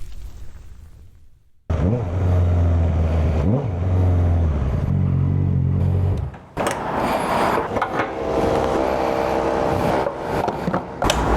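Motorcycle engine, a 2015 Honda CBR650F inline-four, in several spliced clips. A note fades out, then after a short gap the engine runs at a steady low pitch with small rises. About six and a half seconds in it changes abruptly to a louder, higher, busier engine note.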